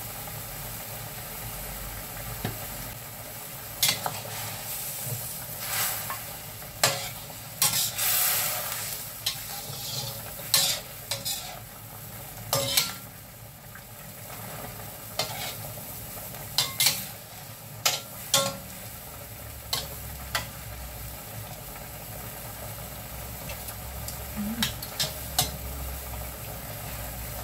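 Metal spatula stirring and scraping in a stainless steel wok, clinking against the pan at irregular moments, most often through the middle. Under it the meat and sweet soy sauce sizzle steadily.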